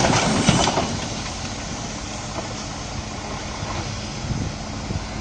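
A loud, rough noise with clicks that dies away about a second in, then a vehicle engine running steadily in the background.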